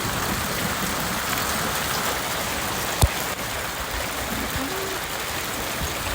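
Small hail, about the size of corn kernels, pattering steadily on the ground and nearby surfaces. There is a single sharp knock about three seconds in.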